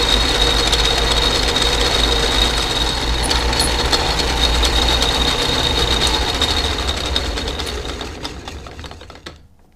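Lathe running while turning an iron plumbing fitting, a steady machine hum with a high tone over it. About six seconds in it is switched off and winds down over about three seconds.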